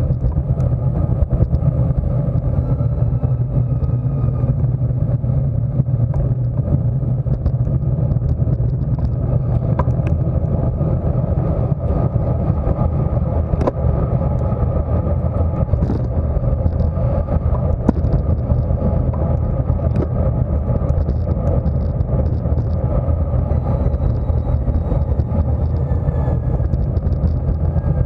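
Steady wind rushing over the microphone of a bike-mounted camera on a road bike moving at racing speed, heard as an even low rumble.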